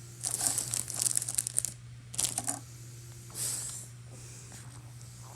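Toy packaging being torn open and crinkled in three short bouts, the first and longest lasting about a second and a half.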